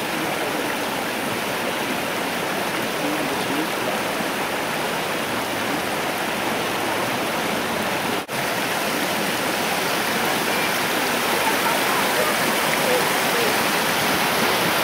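Shallow forest stream running and splashing over rocks and small cascades, a steady rush of water that drops out for an instant about eight seconds in.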